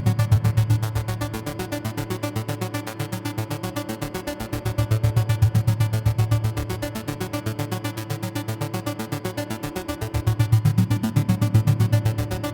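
Electronic music: a fast, even pulse of about ten beats a second over a deep bass note that swells louder and fades back every five or six seconds.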